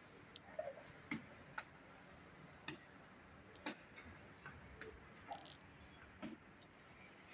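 Quiet background with scattered sharp clicks and knocks at irregular intervals.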